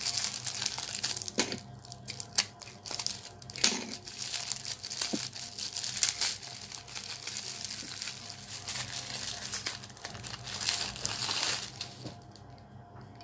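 Clear plastic wrap crinkling and crackling in irregular bursts as it is peeled and pulled off a copper water bottle, stopping near the end.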